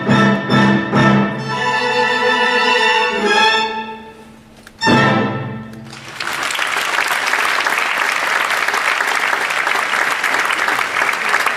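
Orchestral music with bowed strings ends on a sharp final chord about five seconds in. A theatre audience then breaks into steady applause.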